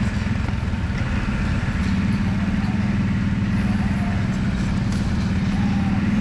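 ATV engine running steadily at low trail speed, a constant drone that eases off slightly about a second in and then holds.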